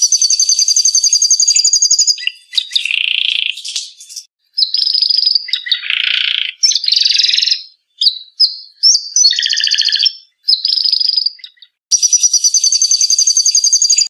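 Songbird singing loudly in varied phrases of a second or two, separated by short pauses. The phrases are fast rolling trills and chirps. The opening rolling trill is a canary's.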